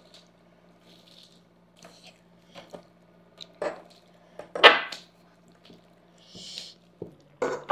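Eating sounds: metal forks clicking and scraping against a foil-lined tray as pasta is scooped up, a few separate clatters with the loudest about four and a half seconds in, and soft mouth and food noises between, over a faint steady hum.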